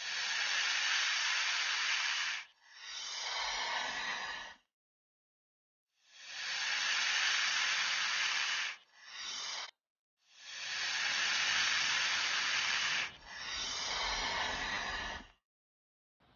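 Snake hissing: three long hisses, each followed straight away by a shorter, softer one, with silent pauses between them.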